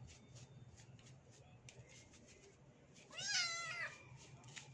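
A wet kitten meows once, a drawn-out call about three seconds in, crying in protest at being bathed.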